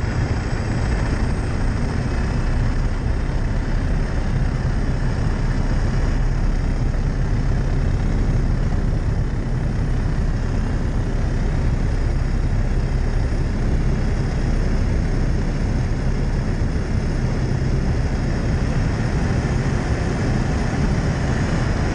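Light high-wing propeller plane's engine and propeller running steadily as it rolls across a grass airfield, heard from a camera mounted under the wing by the strut.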